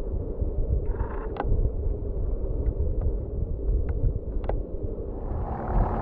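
Steady low rumble of wind buffeting the microphone, with a few faint short sharp sounds about a second in and again around four and a half seconds.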